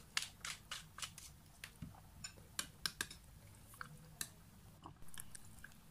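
Faint, irregular clicks and taps of a pepper shaker being shaken over a glass bowl of raw chicken, then a metal spoon starting to stir the marinade in the glass bowl.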